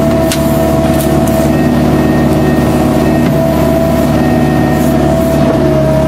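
Kubota U-45 mini excavator's diesel engine running steadily under working load, with a steady high hydraulic whine. A few sharp cracks sound in the first second or so.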